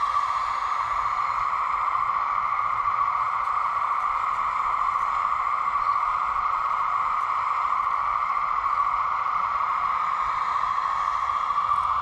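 Hydraulic pump of a 1:15-scale RC Kubota U17 mini excavator running steadily, making an even whirring hiss that stays the same while the machine raises its boom and swings.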